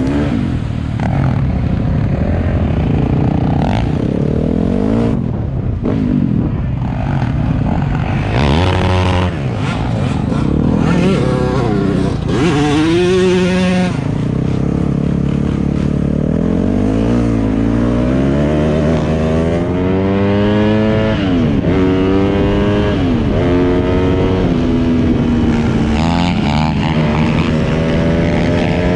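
Dirt bike engine running and revving, its pitch rising and falling again and again.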